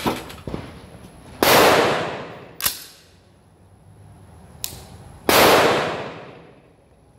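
Two loud gunshots about four seconds apart, each echoing and dying away over about a second under the covered range roof. Between them come a few shorter, sharper cracks.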